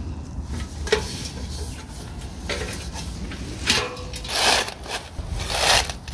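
A homemade tin-can stove is handled and set down: a click and a few short ringing knocks of thin sheet metal. Then dry sticks scrape and rattle against the can as they are pushed into it.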